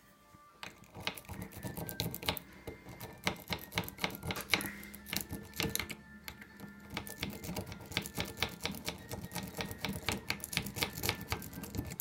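Electric lock pick gun rapidly snapping against the pins of a small pin tumbler lock, a fast, uneven clatter of clicks that starts about half a second in. The lock does not open: the tension is set the wrong way.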